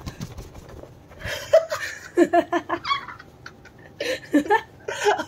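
A woman laughing in short bursts, twice: once starting about a second in, and again about four seconds in.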